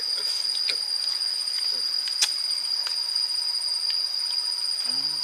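Steady insect chorus: a continuous high whine with a faster pulsing trill above it. Scattered small clicks, with one sharper click about two seconds in, and a man's voice starts just before the end.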